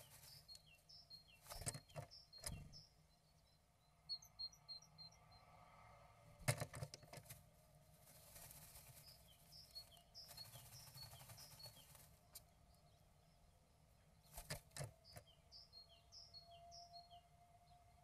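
Faint knocks and rustles of a great tit shuffling and tugging at moss inside a wooden nestbox while building its nest, with a few sharp knocks in clusters. Short high bird chirps repeat faintly in the background.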